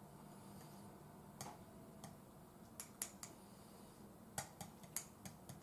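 A spoon clinking lightly against a ceramic mug, about ten short irregular taps starting about a second and a half in, some with a brief ring: stirring a cup of instant egg soup.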